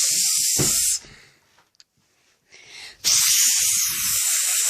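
Two long, loud hisses: one ends about a second in, and the next starts about three seconds in and lasts about two seconds.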